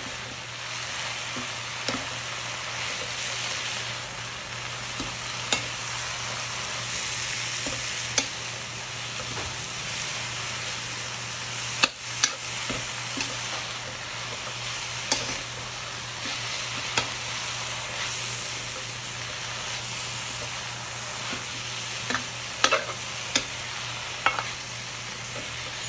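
Chinese kangkong (water spinach) stir-frying in a metal wok: a steady sizzle as the greens are tossed and turned. A coconut-shell ladle knocks sharply against the pan now and then, several times in quick succession near the end.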